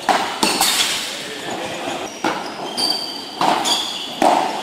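A padel rally: the ball knocked back and forth by solid padel rackets and bouncing off the floor and walls, about eight sharp knocks with a short echo after each, and a few brief high squeaks in between.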